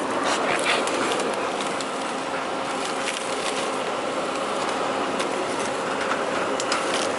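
A white plastic shopping bag rustling and crinkling, with short clicks, as a dog leash is tied to a chain-link fence. Beneath it runs a steady hum of street noise.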